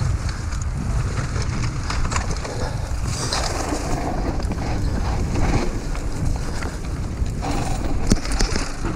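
Mountain bike descending a dirt singletrack: steady wind rush on the microphone and tyre rumble on dirt, with scattered clicks and rattles from the bike over bumps.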